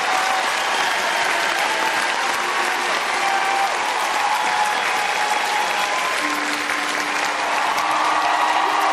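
Large audience applauding steadily and thickly, with a few voices calling out in the crowd.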